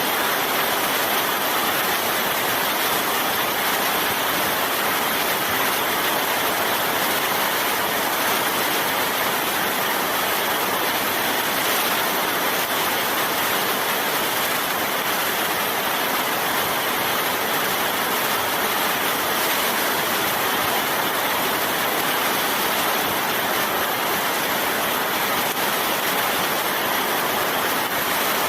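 Steady rain falling: an even, unbroken hiss of many drops, with no single drop standing out.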